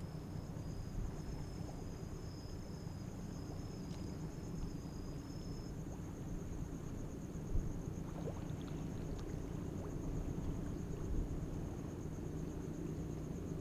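Insects trilling in two high, finely pulsing tones, one of which stops about halfway through, over a steady low rumble. A single short knock sounds about halfway.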